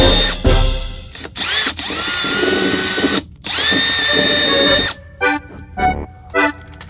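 Aimsak cordless drill motor run twice in short spells, each time whining up in pitch, holding steady, then cutting off.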